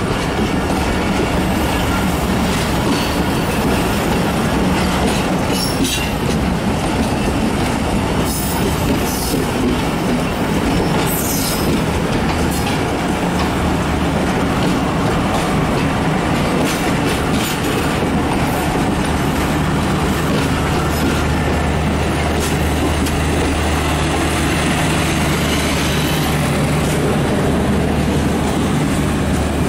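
Passenger train coaches rolling past at low speed as the train departs: a steady rumble of wheels on rail with clicks over the rail joints and a brief wheel squeal.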